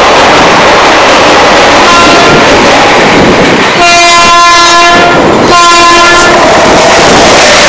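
WAP-7 electric locomotive sounding its horn as it approaches at speed: a short blast about two seconds in, then a long blast from about four seconds, broken briefly near five seconds and taken up again. Loud, steady rushing noise runs underneath.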